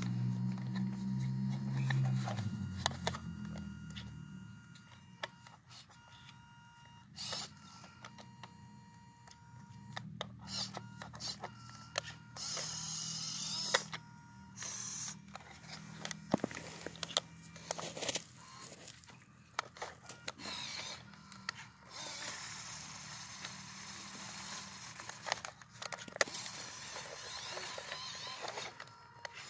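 The small upgraded electric motor and geared transmission of a WPL C24 RC crawler truck whine in short runs as it crawls through snow, with many clicks and crunches from the tyres and drivetrain. A low drone at the start fades away about three seconds in.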